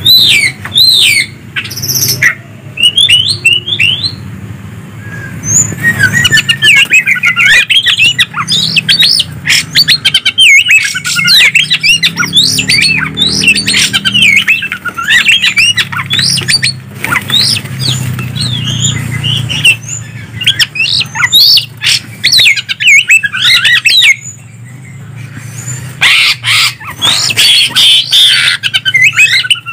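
Green leafbird (cucak ijo) and oriental magpie-robin (kacer) song: rapid, varied whistles sliding up and down, mixed with harsh notes and sharp clicks, over a steady low hum. The singing breaks off briefly about three-quarters of the way through, then resumes.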